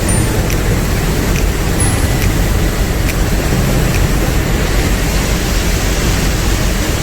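Vibrating screen for sifting crushed stone into sand, running: a loud, steady mechanical noise, strongest in the low range, with a few faint sharp ticks scattered through it.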